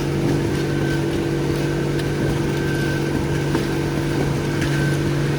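Heavy diesel engine of the concrete pump or mixer truck running steadily at constant speed.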